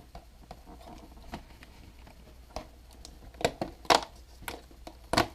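Fingers pressing in and tearing open a cardboard door on a chocolate advent calendar: a series of short, sharp cardboard clicks and cracks, the loudest about four seconds in.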